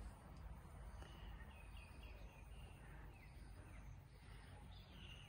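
Near silence outdoors, with a bird's faint, short chirps repeating several times from about a second in.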